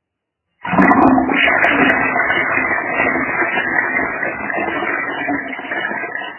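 Toilet flushing: a sudden rush of water starts about half a second in, with a few sharp clicks near the start, then slowly dies down and fades out at the very end.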